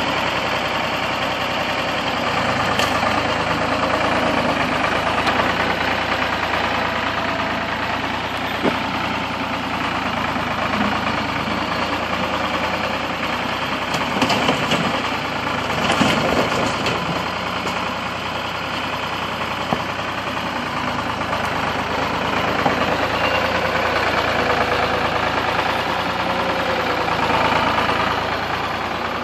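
An engine running steadily, its pitch shifting now and then as if under changing load, with a few sharp knocks and bangs around the middle.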